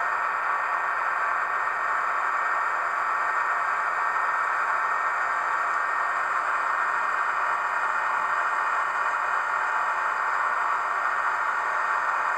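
Sound decoder in a Rivarossi HO-scale model of the FS E402 electric locomotive, played through the model's small loudspeaker while the locomotive stands still: a steady, even hiss with faint high tones, and no motion sounds.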